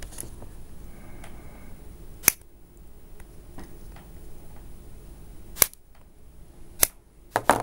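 About five sharp clicks and taps, spaced a second or more apart, from small metal parts and tools handled on a worktable; the last two come close together near the end.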